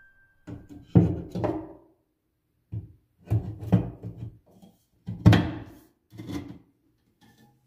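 A white clothes rail being pushed and knocked into its end bracket on a chipboard wardrobe panel: a string of irregular knocks and clunks, the loudest about five seconds in.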